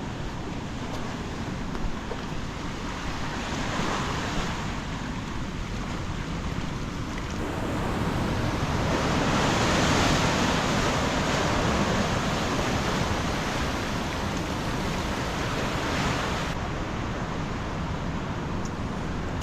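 Ocean surf: waves washing and breaking. The sound swells louder from about eight seconds in, peaks around ten seconds, and surges again briefly near sixteen seconds.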